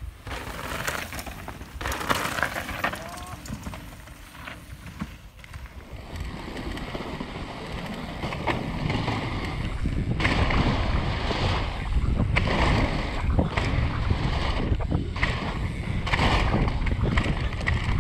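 Mountain bike ridden fast downhill: wind buffeting the camera microphone, with the tyres and bike rumbling and rattling over dirt and wooden trail features and many short knocks. It gets louder and busier after about six seconds.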